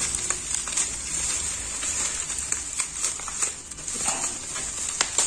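Plastic bubble wrap crinkling and rustling as it is slit with a box cutter and pulled open by hand, with scattered sharp crackles.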